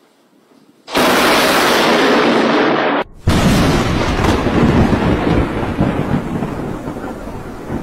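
Thunder from nearby lightning strikes. A sudden, very loud crack comes about a second in and breaks off near three seconds. A second close crack follows and fades into a long rumble.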